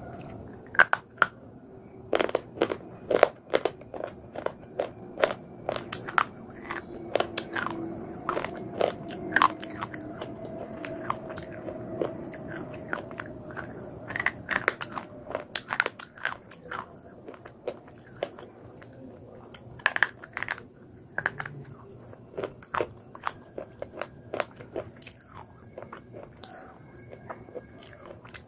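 Slate pencil being bitten and chewed close to the microphone: sharp, irregular crunches of brittle slate, many in quick succession.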